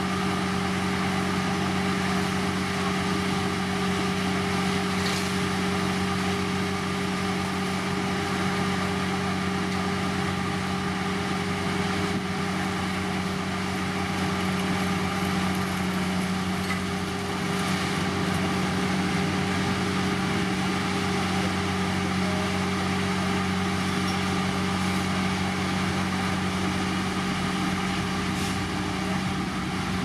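Diesel engine of heavy road-construction machinery running steadily at constant speed, a low even hum with no change in pitch.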